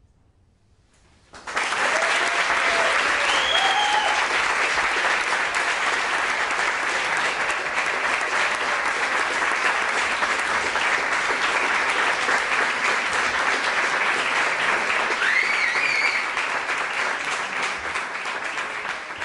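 Audience applauding, starting abruptly about a second in after a moment of near silence, with a few cheers over the clapping; it eases off near the end.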